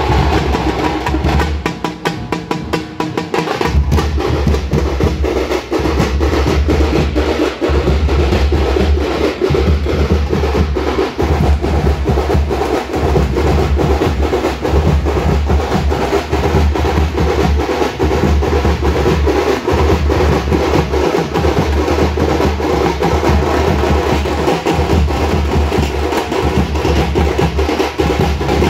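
Tamate frame drums beaten fast with sticks, a dense, steady rolling beat that eases briefly about two seconds in.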